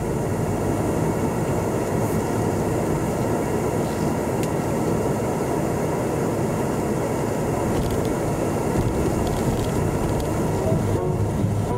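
Steady rumble of an Alfa Romeo Spider's engine and tyres as the car drives slowly.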